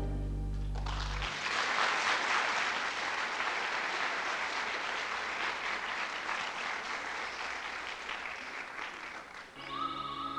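Audience applauding for about eight seconds after the music ends on a held chord, the clapping fading out; new music with a high melody line starts near the end.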